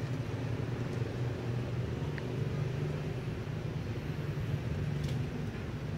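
A steady low engine hum.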